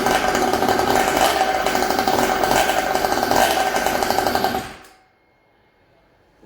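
Power tool running steadily at one pitch with a rapid rattle for about five seconds, then winding down and stopping.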